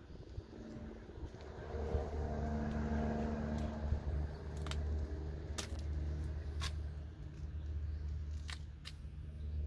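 A vehicle engine running steadily with a low hum, with about five sharp clicks in the second half.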